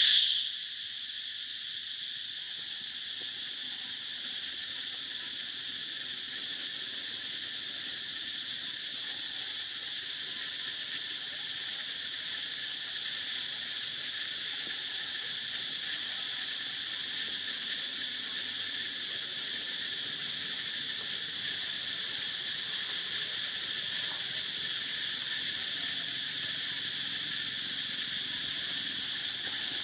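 Steady chorus of insects, a continuous high-pitched drone that holds unchanged throughout, briefly louder right at the start.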